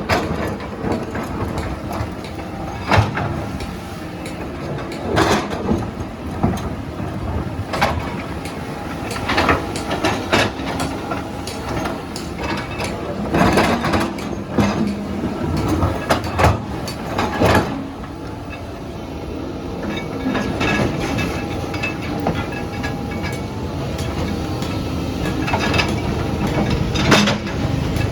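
Heavy tracked earthmoving machine at work: the engine runs steadily under a string of irregular metallic clanks and knocks.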